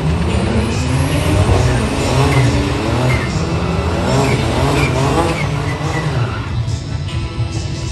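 Turbocharged Ecotec V6 engine in a car accelerating hard, its pitch climbing several times in a row as it revs up through the gears.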